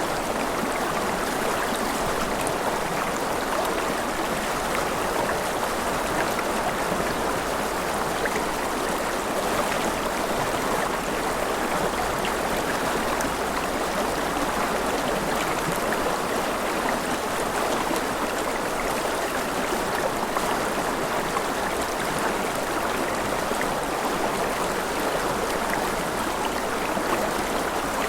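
Mountain river running over rapids: a steady, unbroken rush of water.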